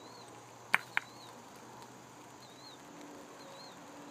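Two sharp metallic clacks about a quarter second apart: a thrown steel pétanque boule striking the boules on the court.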